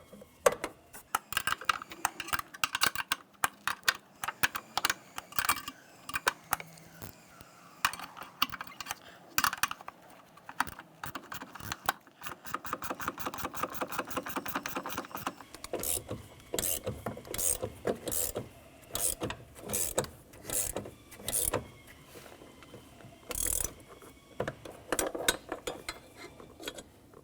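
Wrench ratcheting on the screw of a door hinge spring compressor, tightening it down to compress the coil spring. Long runs of quick clicks, with a fast even run about halfway through and louder, more spaced clicks later.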